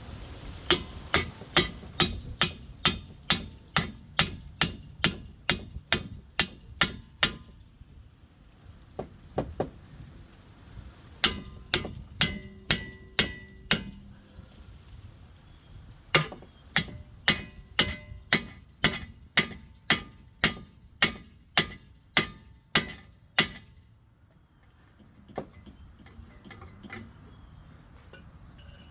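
A hammer striking a steel pickle fork wedged into a suspension joint, driving it in to pop the joint's stud out of the steering knuckle: three long runs of sharp metal-on-metal blows, about two or three a second, with short pauses between and the strikes stopping near the end. The joint is stubborn and has not come loose.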